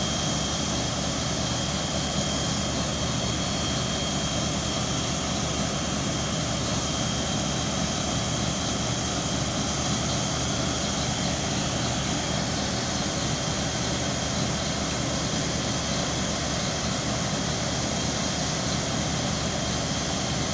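Borehole drilling rig running steadily, with compressed air blowing water and spray up out of the borehole around the drill pipe. The engine and air rush together make one even, continuous noise with a thin high whine over it.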